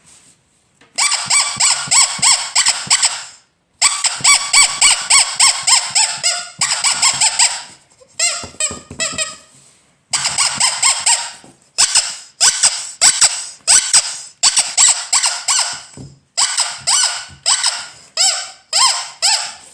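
Ledraplastic rubber squeaky toy squeezed over and over, giving quick runs of high squeaks separated by short pauses. In a few runs the pitch slides downward from one squeak to the next.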